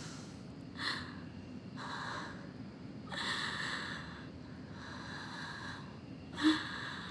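A woman's breathing as she cries quietly: about five noisy breaths and sniffs at roughly one-second intervals, the last one a sharper, louder intake.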